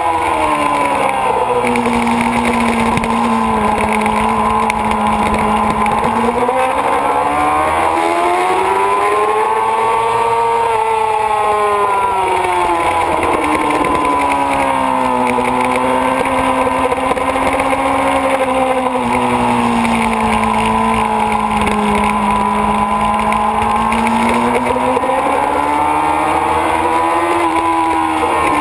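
Kawasaki ZX-6RR inline-four sport-bike engine running at track speed, heard from an onboard camera. Its pitch rises and falls in several long, smooth sweeps as the throttle opens and closes, over a steady rush of wind.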